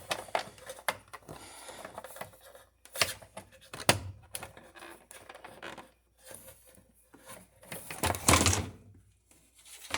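Irregular sharp clicks and light knocks, with a louder rattling clatter about eight seconds in.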